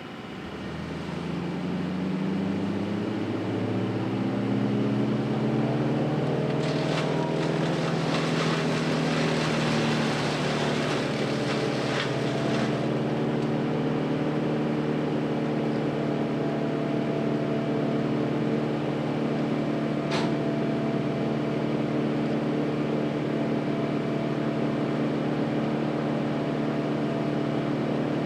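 A large engine on the tree-removal crew's equipment speeding up over the first few seconds, then running steadily at high revs. A quarter of the way in, a harsh rushing noise joins it for about six seconds, and a single sharp crack comes about two-thirds of the way through.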